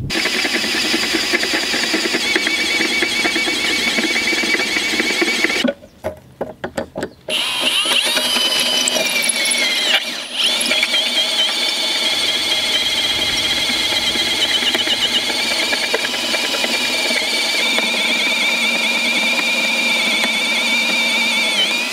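Power drill with a cobalt bit boring through a steel hinge piece, the bit squealing steadily as it cuts. The squeal stutters and drops out for about a second around six seconds in and dips briefly again near ten seconds.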